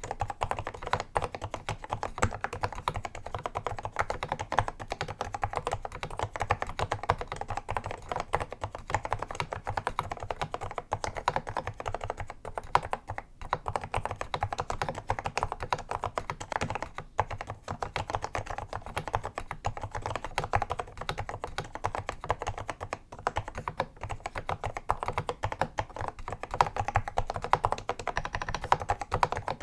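Continuous typing on a vintage Apple M0110A keyboard's Mitsumi Standard Mechanical linear switches: a steady stream of quick key clacks with keys bottoming out.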